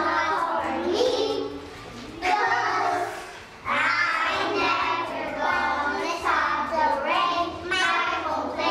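A group of young children singing together in unison, with two short breaks between phrases.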